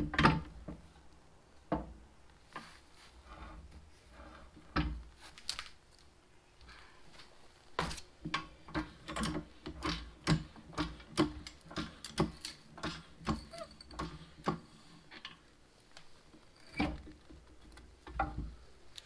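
Scattered clicks and knocks of metal parts as a Lift-All belly hydraulic pump on a floor jack is nudged and aligned against the underside of a Farmall H tractor. In the middle comes a run of quick, even clicks, about two a second.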